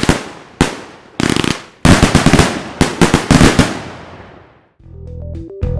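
Fireworks going off: single loud bangs, then rapid volleys of shots, each fading away, dying out about four and a half seconds in. Background music with a repeating tune starts near the end.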